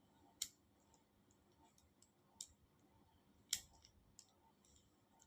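A few faint, sharp clicks from a VW microbus seat belt buckle mechanism as it is handled, the loudest about three and a half seconds in, with near silence between them.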